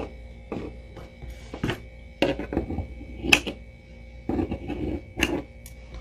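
Scissors snipping through acrylic yarn near the end, among a few short knocks and rustles of hands handling the yarn and crocheted bow, over steady background music.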